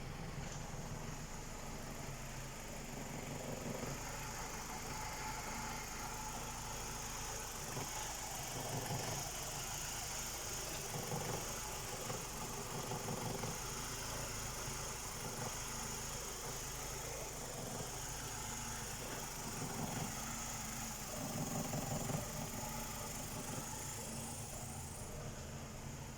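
BMW N46 four-cylinder petrol engine idling steadily, with a constant high-pitched hiss over the engine note.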